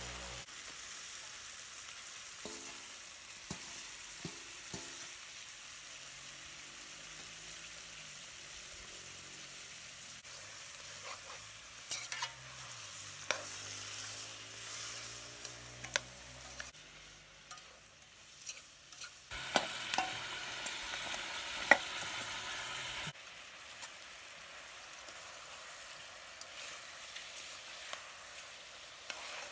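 Pork pieces sizzling as they fry in a metal pot, stirred with a spatula that scrapes and knocks against the pot in scattered clicks. The sizzling grows louder for a few seconds past the middle, then cuts off suddenly.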